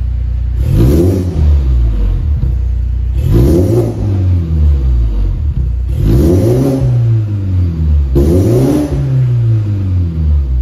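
BMW 330e's turbocharged four-cylinder engine idling through an aftermarket sports exhaust, then revved four times while the car stands still. Each rev climbs quickly and drops back to idle over a second or two.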